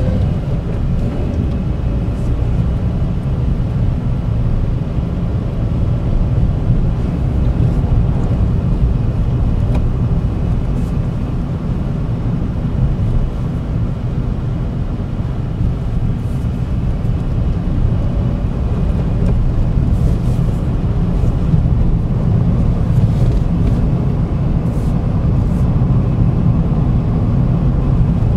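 Vauxhall Agila's engine and tyre noise heard from inside the cabin as the car drives slowly along a town street, a steady low rumble.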